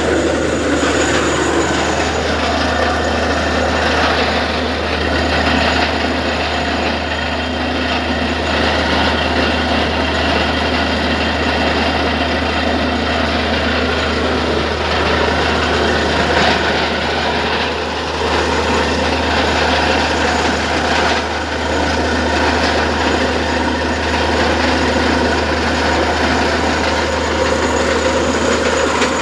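Borewell drilling rig running steadily: a loud, continuous machine noise with a strong low hum that holds unbroken throughout.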